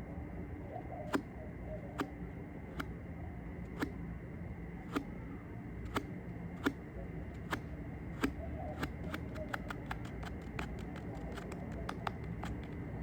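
Sharp taps on makeup containers, about one a second at first, then quicker and lighter, several a second, from about nine seconds in, over a steady background hiss.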